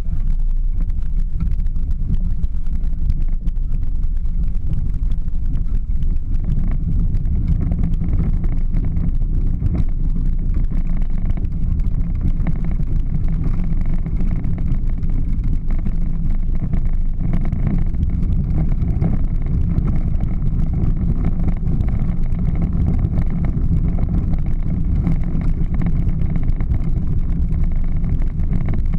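A Power Wheels ride-on toy Jeep driving on asphalt, recorded from on board: a steady low rumble from its hard plastic wheels rolling on the pavement. From about six seconds in, a faint steady whine from its electric drive motors and gearboxes sits over the rumble.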